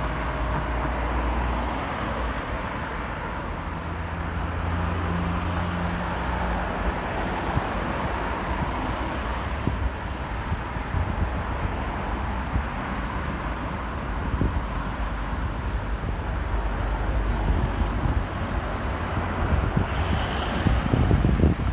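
City street traffic: cars running along the road in a steady rumble of engines and tyres. Near the end wind buffets the microphone.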